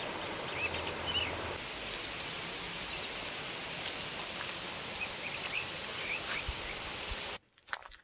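Outdoor forest ambience: a steady, even rushing noise with a few short bird chirps. It cuts off suddenly near the end.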